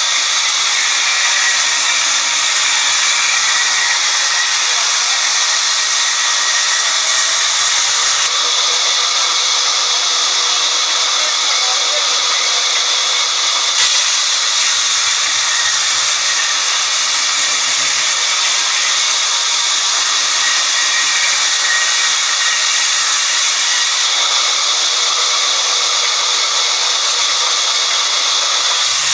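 A sawmill's vertical band saw running steadily and ripping a log lengthwise into slabs as it is fed through the blade. It makes a continuous, even, hissing noise.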